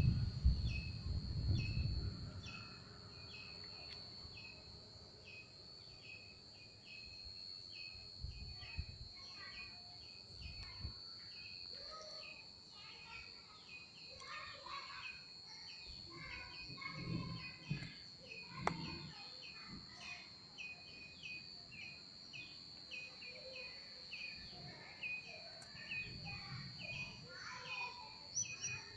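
Outdoor ambience of birds calling over and over in short repeated chirps, with a steady high-pitched whine running underneath. A low rumble fills the first couple of seconds, then fades.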